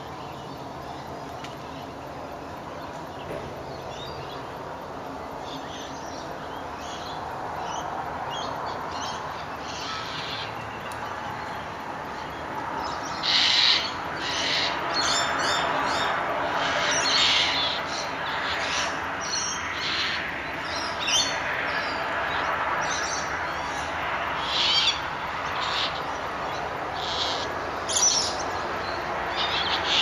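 Dawn chorus: many birds calling and chattering together, the calls coming thicker and louder about halfway through, with short sharp calls standing out.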